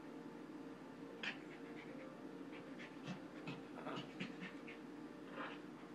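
Faint, scattered rustles and snuffles from a Pomeranian rubbing and rolling on carpet after a bath.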